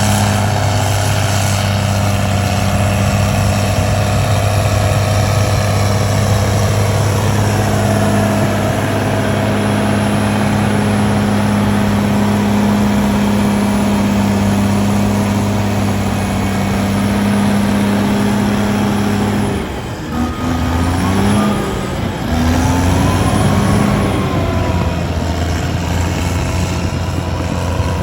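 Heavy diesel engine of a working dump truck or bulldozer running hard at a steady speed. About twenty seconds in it drops off briefly, then revs up and down a few times before holding steady again.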